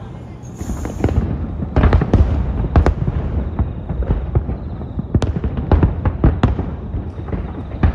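Fireworks going off: an irregular string of sharp bangs and cracks that picks up about a second in and keeps coming, over a low rumble.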